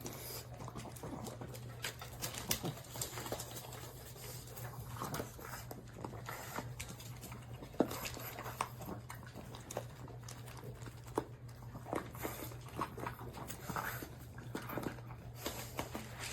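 A Chihuahua eating kibble from a slow-feeder puzzle bowl: irregular clicks and ticks of food and teeth against the bowl, over a steady low hum.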